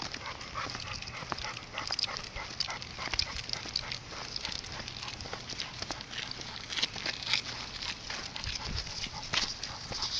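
Two male Cane Corsos walking on leash along a paved road: scuffing paws and footsteps, with small clinks from the chain and prong collars, an irregular run of short ticks.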